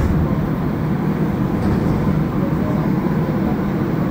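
Steady low rumble and hum inside a car of a Montreal Metro AZUR train, a rubber-tyred metro train.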